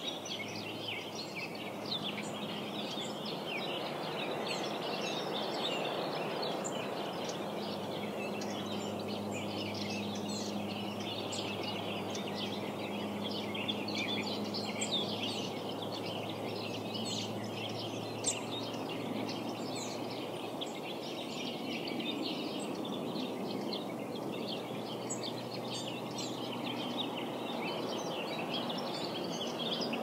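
Many small birds chirping and twittering continuously over a steady background rush, with a faint low hum underneath.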